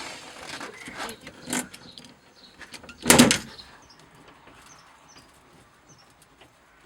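A few scattered knocks and clicks from handling work on the vehicle, the loudest a single knock about three seconds in, then quieter with faint high chirps.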